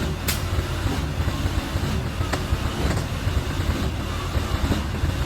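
A vehicle engine running steadily with a low rumble, with a few sharp clicks or taps on top.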